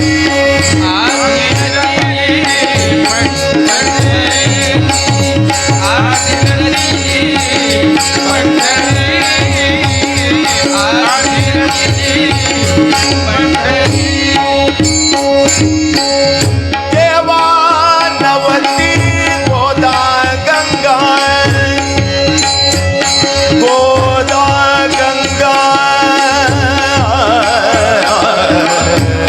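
Marathi devotional abhang bhajan music, mostly instrumental. A hand drum plays a steady rhythm with rapid high strokes, under a held drone and a winding melody line.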